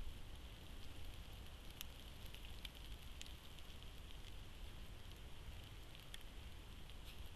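Faint outdoor background hiss picked up by a trail camera's microphone, with a few light ticks scattered through it.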